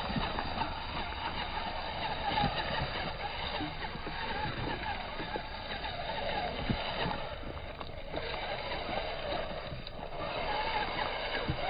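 Radio-controlled rock crawler climbing over loose river stones: its motor and drivetrain whir steadily while the tyres grind over the rocks, with scattered knocks of stones shifting under it. The whir briefly drops away twice near the end, as the throttle eases.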